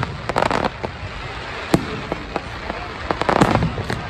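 Fireworks going off: a string of sharp bangs and pops, with two spells of crackling, one near the start and one about three seconds in.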